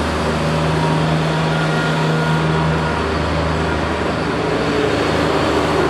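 A large motor vehicle's engine running close by: a steady, loud, low drone with street noise around it.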